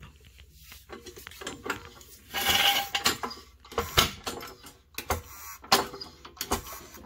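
Hydraulic floor jack being pumped by its handle to lift a car: irregular metallic clanks and clicks from the handle and pump strokes, with a longer rasping noise about two and a half seconds in.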